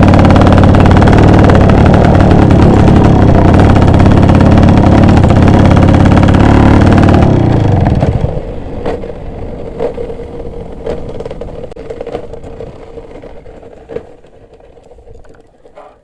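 A two-stroke motorcycle engine running loud and close. About eight seconds in the sound drops away sharply, leaving a few faint clicks and a low steady hum that fade out.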